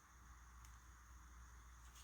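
Near silence: room tone with a steady low hum and faint hiss, and a couple of very faint ticks.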